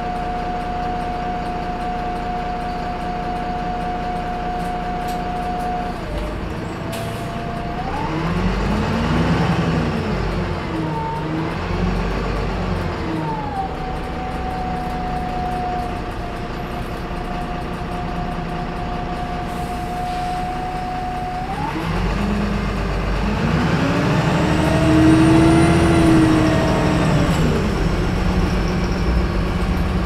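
Heard from inside the cabin of a VDL SB200 Wright Pulsar 2 single-deck bus: a steady high turbo whine over the diesel engine. Twice the bus pulls away, and the engine note rises and falls through the gear changes, with the whine settling back to a steady note in between.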